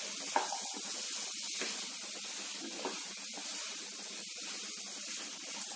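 Boiled chickpeas being stirred through hot masala in a nonstick pan: a steady sizzling hiss, with a few soft scrapes of the spatula against the pan in the first half.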